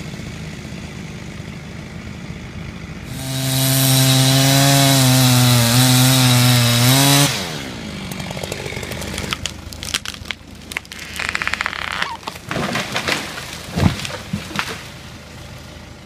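Chainsaw idling, then run at full throttle for about four seconds as it cuts through a small beech being felled, its pitch sliding down as the throttle is released. Then a string of sharp cracks and snaps with a louder crack near the end, as the felled tree breaks and comes down through the branches.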